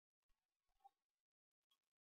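Near silence, with two faint ticks.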